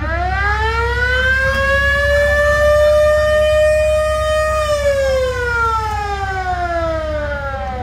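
Vintage ambulance siren, sounded once: it winds up in pitch for about two seconds, holds, then winds down slowly from about five seconds in.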